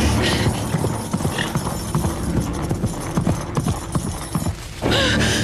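Hoofbeats of a horse galloping over the ground, a fast, uneven run of thuds that breaks off near the end.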